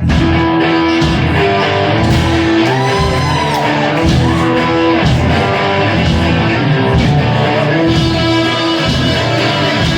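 Live rock band playing a classic metal song: distorted electric guitars, bass and drums at full volume, with sliding guitar bends about three seconds in.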